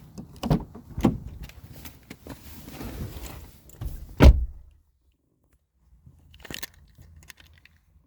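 Knocks and clunks of hands closing up a car's relay compartment. One loud slam comes about four seconds in, then a short hush and a faint scrape.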